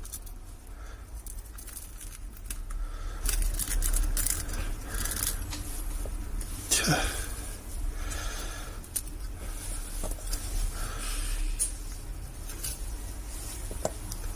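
Light scraping and small clicks of a fingernail working along the seam of a Xiaomi Mi 8 Youth Edition's glass back cover, loosening it from its adhesive, with a sharper click about seven seconds in. A steady low hum runs underneath.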